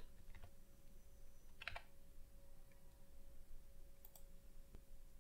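Faint, scattered clicks of a computer keyboard and mouse: a couple of keystrokes near the start, a sharper click about a second and a half in, and a quick double click about four seconds in.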